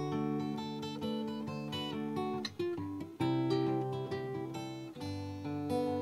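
Background music: acoustic guitar picking and strumming.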